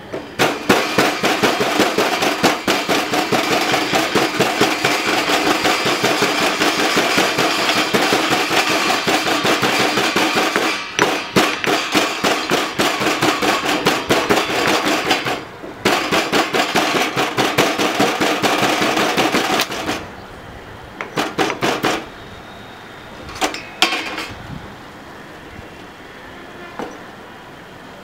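Stone pestle pounding in a heavy stone mortar, crushing black peppercorns: a fast, continuous run of hard knocks for about twenty seconds with two short breaks, then a few scattered strikes.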